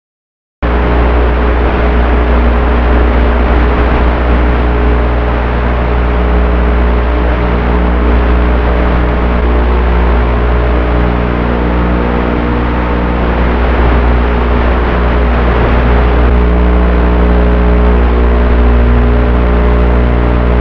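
Electric motors and propellers of a 3D-printed model autogyro running steadily, heard from its on-board camera with heavy wind rush. The sound starts abruptly about half a second in, and the motor hum shifts pitch a couple of times.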